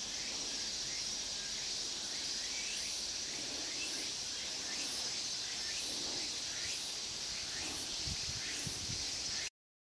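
Steady, high-pitched chorus of insects trilling, with an even pulsing in it. There are a couple of faint low bumps near the end, then the sound cuts off abruptly.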